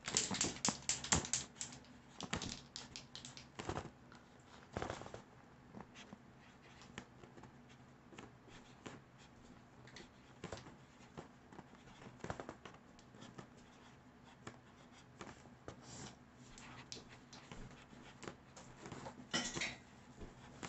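Permanent marker scratching across a foil balloon as a message is written on it, in many short, quick strokes. The strokes come thickest in the first two seconds and again near the end.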